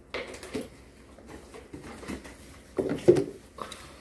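Mealtime table noises: scattered knocks and rustles of cups, a juice carton and food wrappers, with a short cluster near the start and the loudest sounds about three seconds in.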